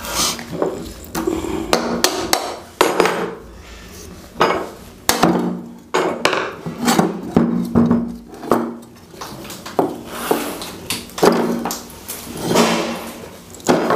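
Irregular clanks and knocks of an 18-inch cooler motor's metal casing and end cover being handled, opened and set down on a wooden table, some knocks leaving a short low metallic ring.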